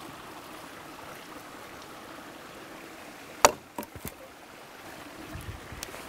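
A dead branch snaps with one sharp crack as a boot stomps on it, about three and a half seconds in, followed by two smaller snaps. A forest stream runs steadily underneath.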